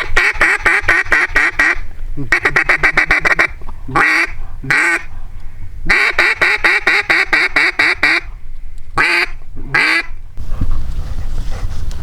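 Mallard-style duck call blown in runs of quick quacks, about eight a second: three long runs with single louder quacks between them, calling to incoming ducks. The calling stops about ten seconds in, leaving wind rumbling on the microphone.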